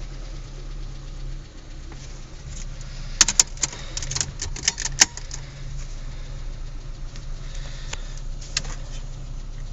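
Renault Clio Mk 2's 1.2 litre 8-valve four-cylinder engine idling steadily, in an echoey enclosed space. A quick irregular run of sharp clicks comes about three to five seconds in, with a couple more near the end.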